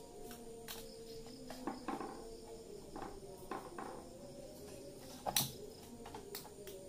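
Small clicks and knocks of computer hardware being handled as a graphics card is fitted back into a PC, with one sharp, loud click about five seconds in, over a faint steady tone.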